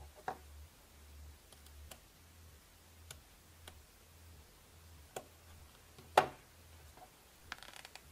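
Scattered small clicks and ticks of a craft knife and leather being handled while picking apart the stitched seam of a leather card holder on a cutting mat, with one louder click about six seconds in and a quick run of faint ticks near the end.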